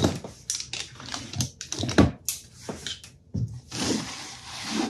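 Workshop handling noises: a string of clicks and knocks as plastic parts and filament of a 3D-printed filament winder are set up, with a short hiss about four seconds in.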